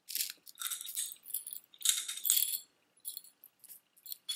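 Beaded necklaces being handled and laid on a table: a few bursts of beads rattling and clicking against each other during the first couple of seconds, then scattered lighter clicks.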